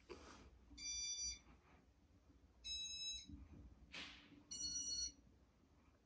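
Three short electronic beeps, about two seconds apart, from a Casablanca California Zephyr ceiling fan's control running its demo mode, as it signals the fan cycling through its settings. A short rush of noise comes just before the third beep.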